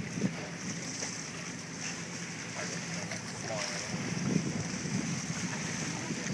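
Wind buffeting the microphone and choppy waves washing against a boat's hull, over a steady low hum.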